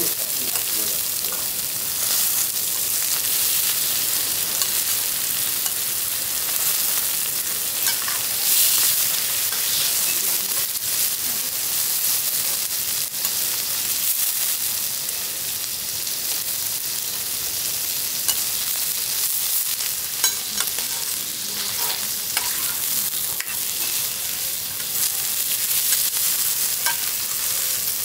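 A5 wagyu sirloin and browned fat sizzling steadily on a hot steel teppanyaki griddle. A few sharp clicks and scrapes come from the knife and spatula meeting the steel plate as the steak is sliced.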